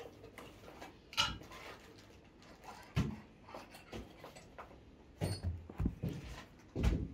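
Shrink-wrapped cardboard box being handled and turned over: scattered soft knocks, rubs and crinkles of the plastic wrap, the strongest about three seconds in and near the end.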